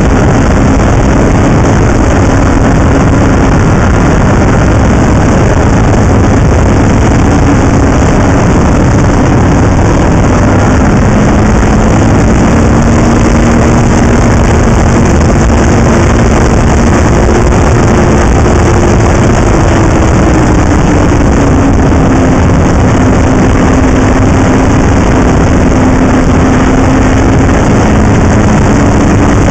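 Snowmobile running along a trail: a loud, steady rush of engine and track noise, with the engine note drifting slowly up and down.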